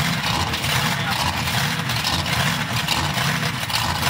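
Monster truck engines idling loudly side by side, staged at the start line of a drag race, with a steady pulsing low note.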